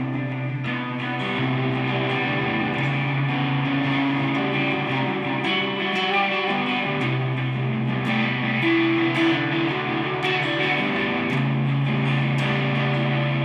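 Solo electric guitar playing an instrumental passage: picked chords with sharp pick attacks over ringing low notes, with no singing.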